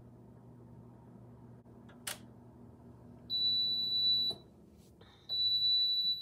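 PYD Life mini sublimation oven signalling the end of its timed cycle with two long, high, steady beeps, the first about three seconds in and the second near the end. Its low running hum stops with the first beep.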